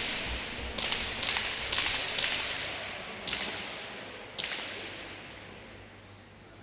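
Pelota ball smacking against the hard surfaces of a fronton: about seven sharp claps in the first four and a half seconds, each ringing on in the court's echo.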